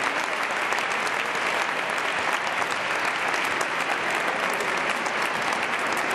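Audience applauding steadily: many people clapping.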